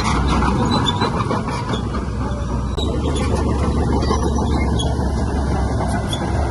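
Heavy diesel earthmoving machinery running steadily, with a strong low engine hum and scattered short high squeaks and clicks.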